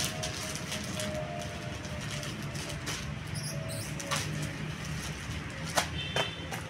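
Scattered light clicks and crinkles of plastic packaging being handled, over a steady low hum.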